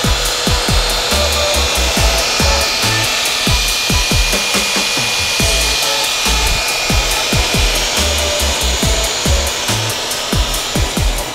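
Ridgid dual-paddle mortar mixer running steadily on its low-gear thinset preset, its two paddles churning a full bucket of thinset mortar, with a steady whine. Electronic music with a heavy beat plays underneath.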